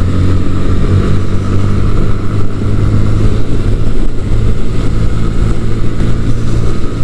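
Sinnis Akuma 125cc motorcycle engine running steadily at cruising speed, with constant wind and road noise.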